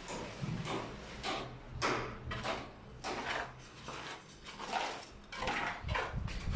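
Plastering trowel scraping and spreading plaster in irregular strokes, roughly one or two a second, over a low steady hum.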